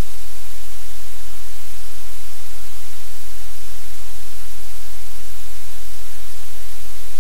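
Loud, steady hiss like static, with a low hum underneath and no change.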